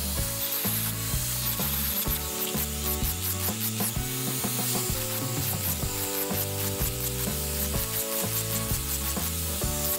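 Background music with a steady beat, over the rubbing rasp of an angle grinder's sanding disc working the face of a curved hardwood stair handrail.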